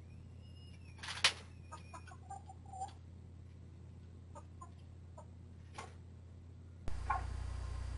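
Domestic hens clucking in short, scattered calls as they settle onto the roost, with one loud sharp noise about a second in, over a low steady hum. Near the end the hum jumps suddenly louder, with added hiss.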